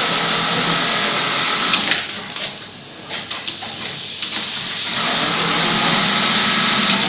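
Auto-elastic sewing machine running at speed. It stops for about two seconds near the middle, with a few clicks, then runs again.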